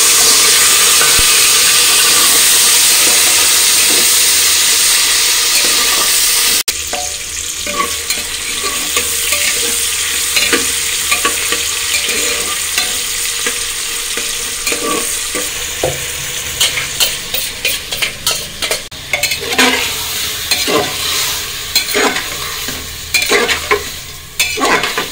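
Chopped tomatoes sizzling loudly in hot oil in an aluminium pressure cooker. A few seconds in the hiss drops suddenly to a softer sizzle, over which a metal spatula scrapes and clicks against the pot as the masala is stirred, faster and more often toward the end.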